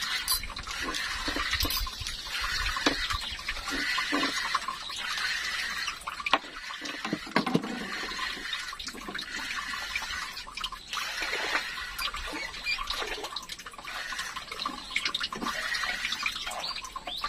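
River water splashing and trickling, swelling and fading every second or so, with scattered small clicks.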